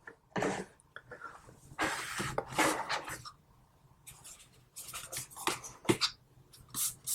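Handling noise of a wristwatch being turned over and moved about: scattered rubbing and scraping with a few light clicks and knocks.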